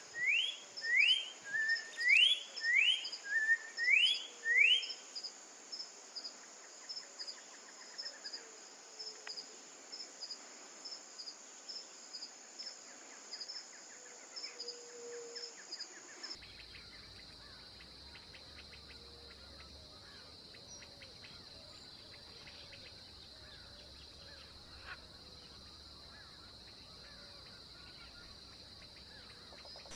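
Orange-backed troupial singing about six loud, rising whistled notes in the first five seconds, over a steady high insect drone with a regular pulse. About halfway through, the sound cuts abruptly to a different, steadier insect drone with faint scattered ticks.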